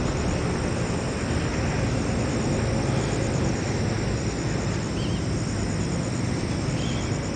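Steady low rumble with a hiss of outdoor background noise, holding at an even level with no distinct events.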